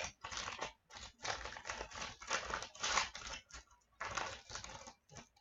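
Crinkling of a trading-card pack wrapper as a pack of hockey cards is opened and handled, in irregular quiet rustling bursts.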